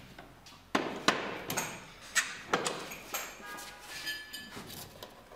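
Sharp metal clanks and knocks, five or six in a few seconds, as parts of a hand-push HDPE butt fusion machine are handled and set in place; a short metallic ringing follows about three and a half seconds in.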